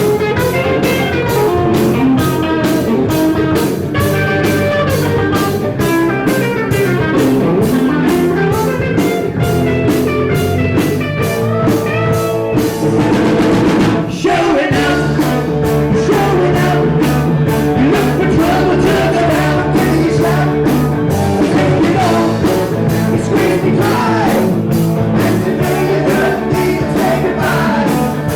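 Live rock band playing, with a drum kit keeping a steady beat under electric guitar and singing. There is a brief break about halfway through before the band comes back in.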